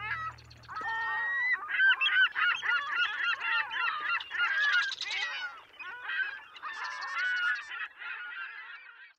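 A flock of birds calling over one another, many quick overlapping calls with no break.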